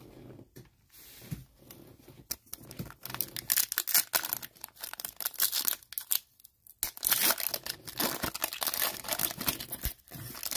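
A foil trading-card pack (Panini NBA Hoops) being torn open and its wrapper crinkled by hand. A few light handling clicks come first. Then, from about three seconds in, come two spells of dense tearing and crackling with a brief pause between them.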